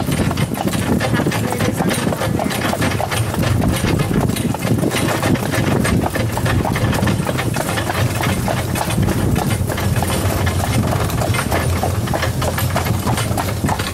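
A horse's hooves clopping along at a walk, over a steady low rumble.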